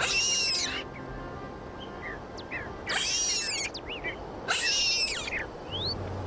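Newborn lynx kitten mewing: three high, thin cries, each under a second, the first at the start, then about three seconds and four and a half seconds in, with short faint rising chirps in between.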